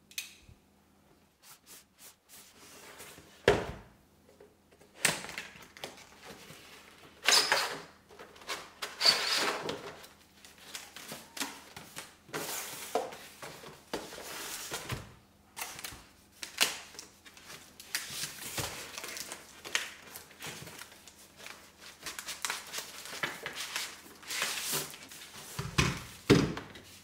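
Cardboard packaging being opened and handled: irregular scraping, sliding and rustling of box and paper, broken by a few thuds on the wooden tabletop. The loudest thud is about three and a half seconds in, and two more come close together near the end.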